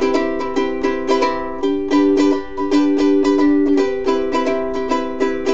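Ukulele strummed in a steady, quick rhythm, its chords ringing, with no singing: an instrumental passage between sung lines of a song.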